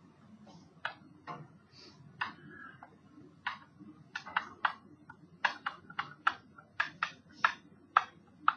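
Pen tip tapping and clicking on a hard writing surface as numbers are handwritten: short sharp clicks, a few in the first half, then several a second over the second half.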